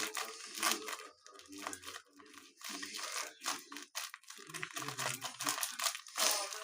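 Irregular crinkling, crunching and rustling noises, a dense series of crackles and scrapes with no steady rhythm.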